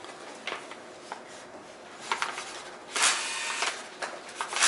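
A Sharpie marker writing on paper during signing, with a few light taps and paper handling, then two longer scratchy strokes in the second half.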